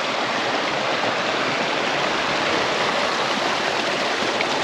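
Muddy runoff water rushing steadily down an earth bank and ditch, a constant broad wash of sound.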